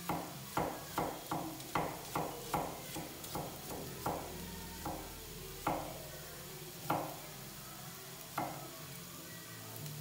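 Sliced shallots frying in oil in a pan, a faint steady sizzle. Over it comes a run of sharp knocks with short ringing tails, about three a second at first, then slowing to a few single knocks.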